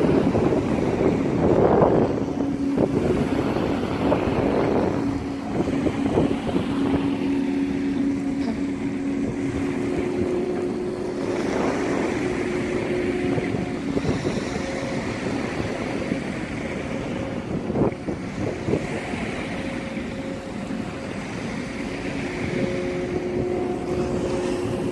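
Wind buffeting the microphone over small waves washing on the sand, with a low steady hum from the passing NYK Venus, a 338 m container ship.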